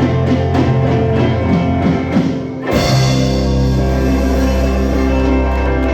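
Live rock band with guitar and drums playing the close of a song: a driving strummed rhythm, then, a little under three seconds in, a final hit and a chord left ringing.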